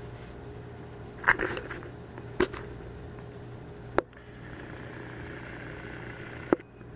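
Four sharp knocks or clicks, spaced a second or more apart, over a steady low hum; the first is followed by a brief crackle.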